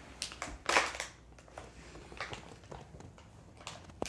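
Scratchy rustling and crinkling in short irregular bursts, the loudest about three quarters of a second in.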